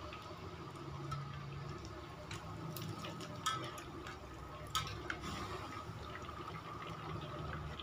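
Chicken pieces deep-frying in hot oil in a wok, the oil sizzling steadily. Several sharp metal clinks come from the spatula and wire strainer against the wok as the fried pieces are lifted out.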